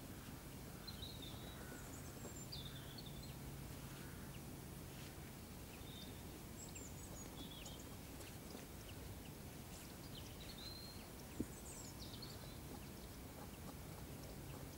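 Quiet rural ambience with small birds chirping in short, scattered calls. A faint low hum runs under the first five seconds or so, and a single sharp click sounds about 11 seconds in.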